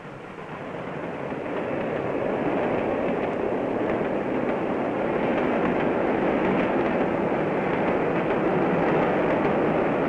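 Steam-hauled passenger train passing close by: the locomotive working and the coaches running over the rails. The noise grows louder over the first two seconds, then holds steady.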